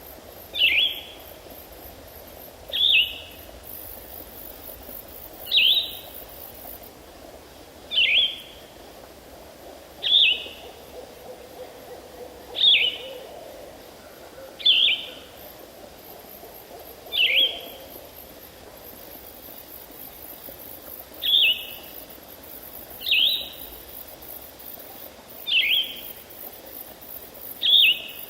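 A bird repeating one short, whistled, downslurred call about every two seconds, a dozen times in all. A high insect trill comes and goes behind it.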